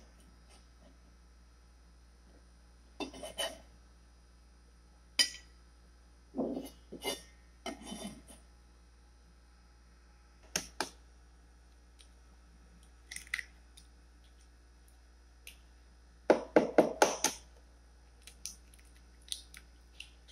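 Kitchen prep sounds: scattered clicks, knocks and scrapes of a cleaver, glass bowl and ceramic bowl on a plastic cutting board, then a quick run of sharp taps about three-quarters through as eggs are cracked into a ceramic bowl.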